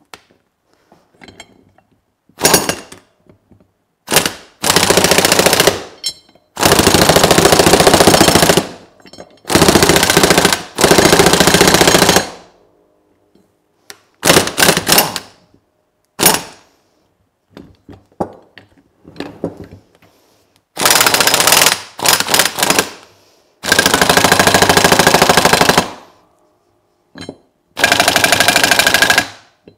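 An impact wrench hammers in repeated bursts of one to two and a half seconds with short pauses between them. It is driving the screw of a C-frame U-joint press to press the bearing cups of a double Cardan driveshaft yoke.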